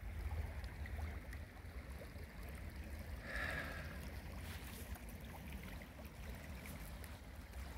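Runoff-swollen creek flowing, faint and steady, with a low rumble underneath.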